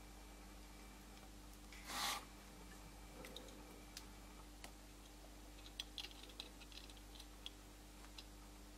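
Faint light clicks and taps of a soldering iron tip and fingers working a resistor lead and thin wires on a small model railway wagon chassis, over a faint steady hum. A short hiss about two seconds in.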